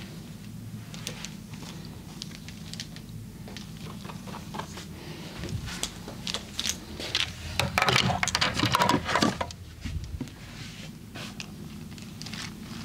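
Hands massaging a person: soft rubbing and scattered light clicks on skin and hair, with a louder flurry of quick clicks and rubbing about eight to nine and a half seconds in.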